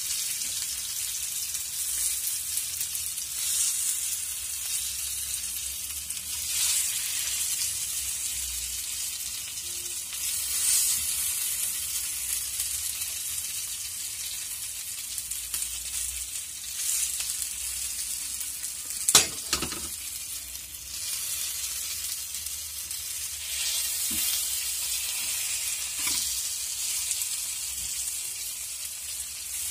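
Marinated chicken drumsticks sizzling in oil on a heavy dosa pan (tawa) over a low flame, with a steady high hiss that swells now and then as a metal spatula turns and scrapes the pieces. One sharp knock about nineteen seconds in.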